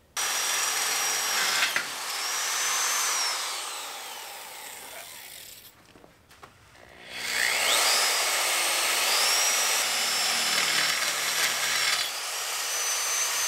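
Old corded Black & Decker electric drill boring a twist bit through the steel tube of an engine hoist frame, with cutting oil on the bit. It runs in two spells with a pause between. Each time the motor's whine rises as it spins up and falls as it slows, over the noise of the bit cutting into the steel.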